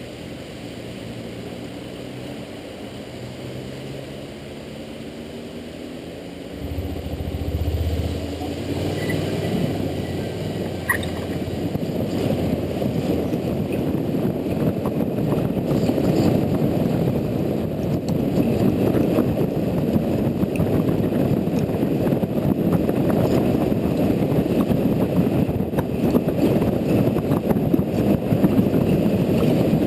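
Honda Integra NC750D's parallel-twin engine running quietly at first, then pulling away about seven seconds in, with wind and road noise building as the motorcycle gathers speed.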